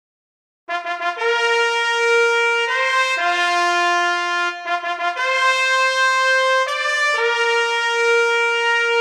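Trumpet fanfare announcement: starts under a second in with quick repeated short notes, moves through held notes and a second quick flourish about halfway, and ends on a long held final note.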